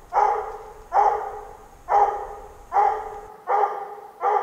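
Bluetick coonhound barking treed in a steady chop, about six barks, roughly one every 0.8 s, marking a squirrel up in a tree.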